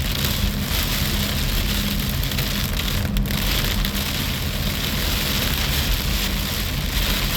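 Rain hitting a moving car, heard from inside the cabin as a steady hiss, over the low rumble of the car's engine and tyres.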